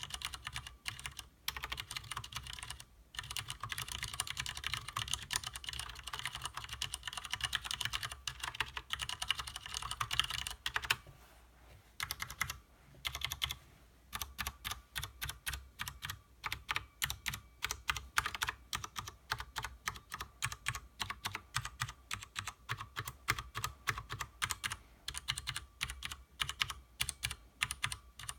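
Typing on a stock Leopold FC750R mechanical keyboard with Cherry MX Clear switches, tactile and non-clicky: fast continuous typing for the first half, then, after two short pauses, a steadier run of separate keystrokes at about four a second that stops right at the end.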